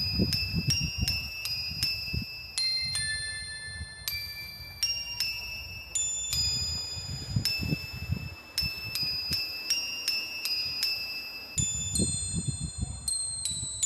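A tinkling chime melody like a music box, a new bell-like note roughly every half second, over a low, uneven rumble.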